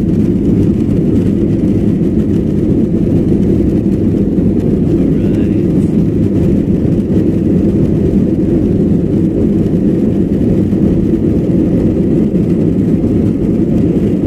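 Jet airliner's engines and the rolling of its wheels on the runway during the takeoff roll, heard inside the passenger cabin as a loud, steady low rush.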